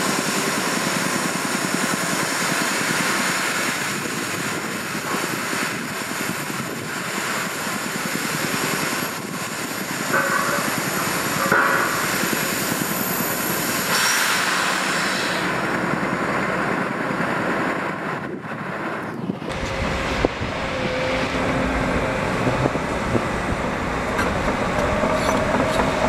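Heavy diesel construction machinery working: a steady engine din, with two short tones about ten and eleven seconds in. About nineteen seconds in it gives way to the deeper engine rumble of a Liebherr R 936 tracked excavator digging soil.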